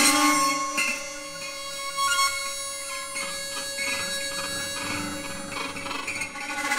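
Contemporary chamber music for strings and home-made instruments: a steady held drone with thin high overtones, joined by scattered light clicks and rattles from about three seconds in.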